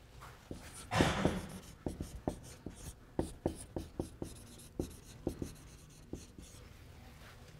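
Dry-erase marker writing on a whiteboard: a series of short squeaky strokes that stop about a second before the end.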